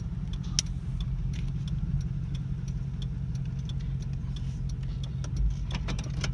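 Ford pickup truck's engine idling steadily, heard from inside the cab, with scattered light clicks and taps over it.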